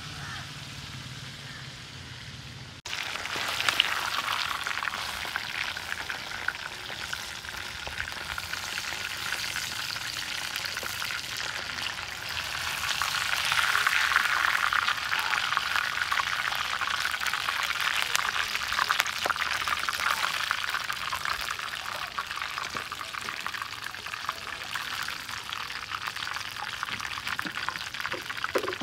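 Fish pieces frying in hot oil in a blackened metal wok over a wood fire, a dense sizzle and crackle of popping oil that starts about three seconds in and is loudest around the middle. A slotted metal spatula turns the fish in the pan.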